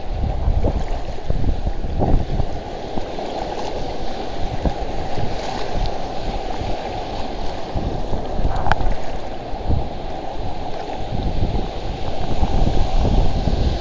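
Wind buffeting the microphone over sloshing shallow seawater and surf breaking in the distance, with one sharp click about two-thirds of the way through.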